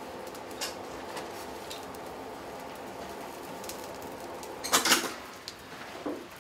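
Coal forge with a steady hum under it, then about five seconds in a sharp clatter of metal as the glowing horseshoe is drawn out of the fire in tongs. A few lighter metallic clinks follow.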